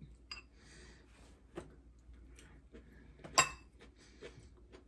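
Quiet eating sounds: soft chewing and mouth noises, with a few small clicks and one sharper click about three and a half seconds in.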